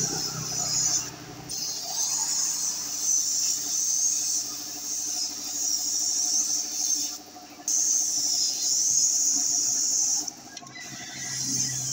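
Compressed-air hiss of a gravity-feed paint spray gun laying down a final coat. The hiss cuts out briefly three times as the trigger is let off: a little after a second in, past the middle, and near the end.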